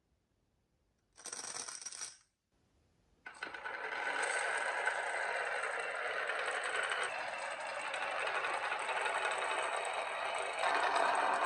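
Many marbles clattering and rattling as they roll along a marble run: a short burst about a second in, then, after a brief gap, a continuous dense rattle from about three seconds in.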